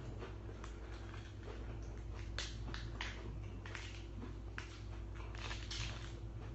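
Crisp crackles of a fresh lettuce leaf being folded and torn by hand: a dozen or so short, irregular snaps, over a steady low hum.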